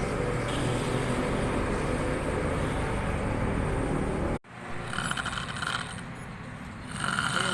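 A man snoring. A steady rough noise runs for about four seconds and cuts off abruptly, then short snores come about every two seconds.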